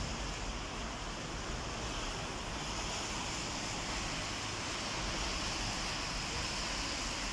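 Steady outdoor wind noise, with wind rumbling on the microphone under an even hiss.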